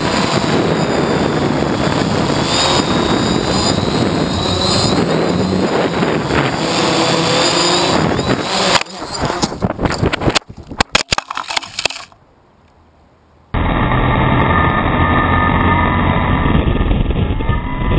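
A prototype battle quadcopter's motors and propellers whir, close up, with rushing air over its onboard camera as it flies fast. About nine seconds in, it collides with a telephone pole: a broken run of knocks and clatter lasting about three seconds, then a brief quiet gap. About a second and a half later the flight sound starts again, duller.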